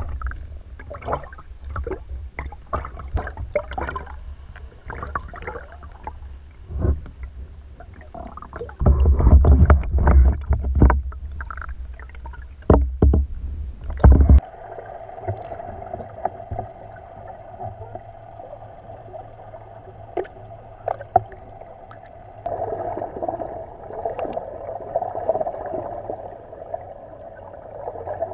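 Underwater recording: water noise with many sharp clicks and crackles over a low rumble, surging loud a few times. About halfway through it changes abruptly to a steady hum with several held tones, louder near the end, like a boat's motor heard underwater.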